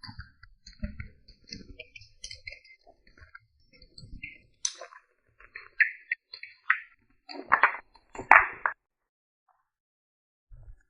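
Cupping cups handled with scattered small clicks and clinks, then two louder pops with a brief rush of air about three-quarters of the way in, as cups come off and their suction is released.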